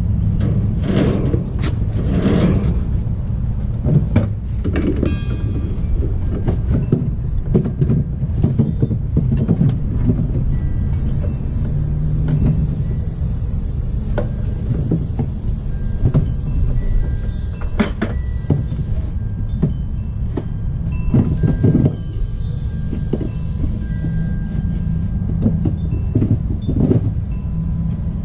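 Background music over scattered clicks and knocks of hands working at the unit, with a steady hiss that starts and stops abruptly, once for about four seconds a third of the way in and again more briefly later.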